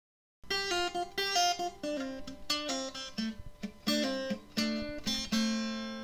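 Intro music: an acoustic guitar plucking a short melody of single notes. It ends on a note left ringing for more than a second.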